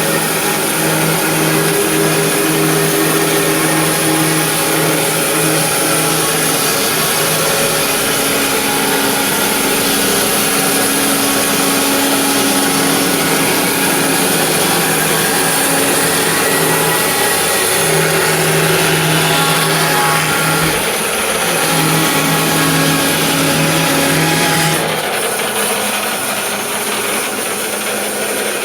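A machine running steadily and loudly with a humming motor note that wavers in and out, its level dropping a little near the end.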